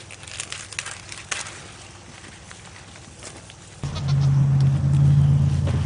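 A few dry crackles of corn plants being handled, then about four seconds in a goat starts a long, low, steady bleat, the loudest sound here.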